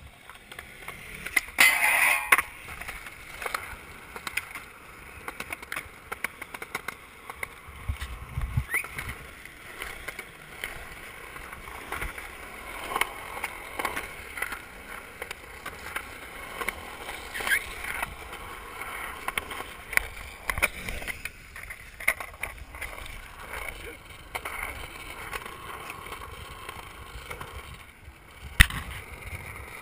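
Skateboard wheels rolling on concrete with many sharp clacks and knocks from the board, and a grind along a concrete edge. A loud burst of noise comes about two seconds in.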